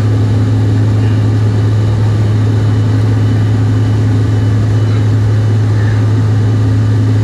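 Steady cabin drone of a Bombardier CRJ-900 regional jet in flight after takeoff, its two rear-mounted turbofan engines and the airflow heard from inside the cabin. A strong, constant low hum runs under an even rushing noise.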